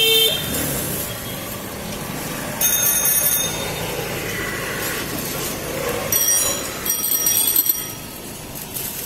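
Busy street noise with a vehicle horn that stops just after the start. Two stretches of high-pitched metallic ringing or squealing come through, one about two and a half seconds in and a longer one from about six to eight seconds in.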